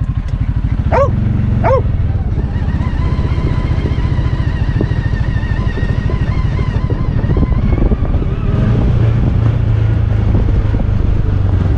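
CFMOTO UForce 550 side-by-side's single-cylinder engine running under way, a steady low rumble. A kelpie barks twice in the first two seconds, and a faint, wavering higher whine rides over the engine for a few seconds in the middle.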